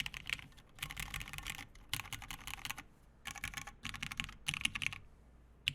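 Typing on a Lin x VKG Whale mechanical keyboard with lubed, broken-in Cherry MX Black ("Ultraglide") linear switches on a polycarbonate half plate, with CRP R4 keycaps. Fast runs of keystrokes come in several bursts with short pauses between them, stopping about five seconds in.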